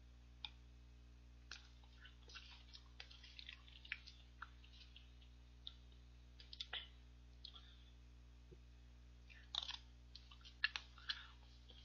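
Soft eating sounds of ice cream spooned from a paper cup with a metal spoon: scattered small clicks and scrapes of the spoon in the cup, lip smacks and chewing, with a denser run of clicks near the end. A low steady hum sits underneath.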